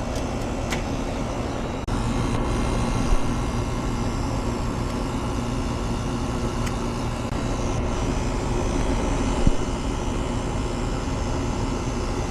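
Steady mechanical drone with a faint hum, broken by a few light clicks.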